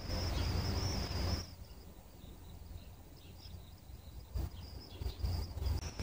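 Strong gusty wind rushing on the microphone and through the tree leaves, heaviest for the first second and a half, easing, then gusting again near the end.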